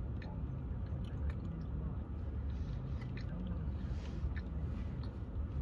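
Mouth sounds of people chewing a soft iced scone, with small wet clicks and smacks, over a steady low rumble.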